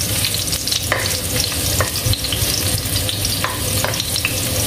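Ginger strips sizzling in hot oil in a wok, stirred with a metal spatula that taps and scrapes against the pan a few times.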